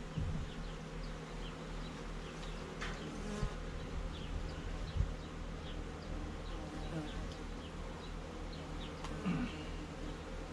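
Honey bees buzzing around an open hive: a steady hum of many bees, with single bees whizzing close past in short rising and falling tones. A couple of dull knocks about three and a half and five seconds in.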